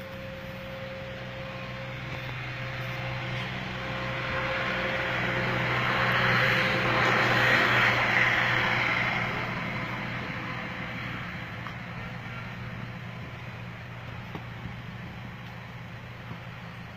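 Van engine running steadily, turning a jugaad water pump through its bare wheel hub. A rushing hiss swells to its loudest about halfway through, then fades.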